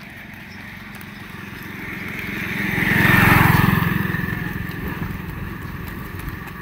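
A motor vehicle driving past on the road, its engine and tyre noise growing louder to a peak about three seconds in, then fading away.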